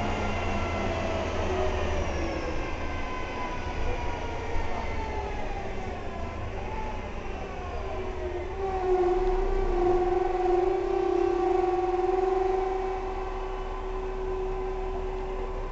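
SICCAR 177 city bus driving, heard from inside the cabin over a low road rumble. Its whine slides down in pitch over the first half, then holds one steady, louder tone for most of the rest.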